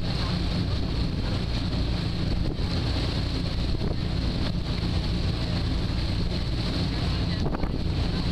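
Passenger ferry under way: its engine runs with a steady low hum beneath wind on the microphone and the rush of water from the wake.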